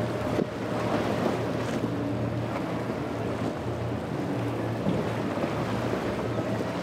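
Twin Mercury outboard motors running at speed as the Scarab center-console boat pounds through choppy waves, with water spray and wind on the microphone.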